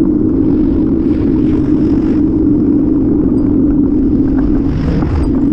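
Steady, loud rumble of a bicycle-mounted camera in motion: road and wind noise while riding.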